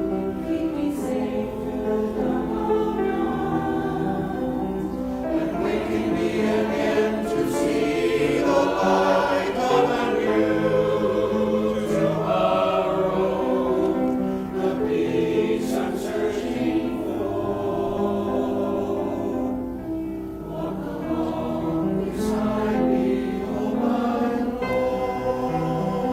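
Church choir singing a hymn in held, full chords.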